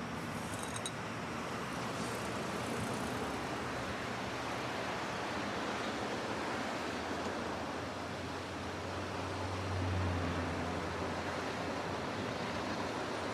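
Steady street traffic noise, with a low engine hum that swells and fades about nine to eleven seconds in as a vehicle passes.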